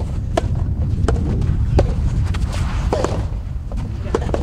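Soft tennis rally: the serve and then rackets striking the rubber ball, a series of sharp short hits spaced under a second apart, over a steady low rumble.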